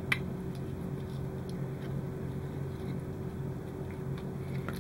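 Steady low mechanical hum of the room background, with a sharp click just after the start and a few faint ticks as the small plastic model part is handled.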